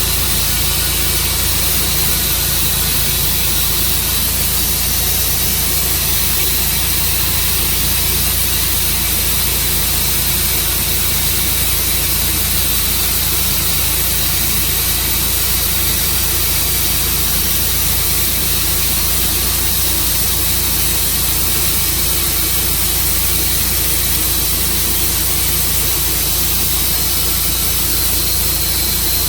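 Tru Cut sawmill running steadily, a loud, even engine hum with a hiss over it.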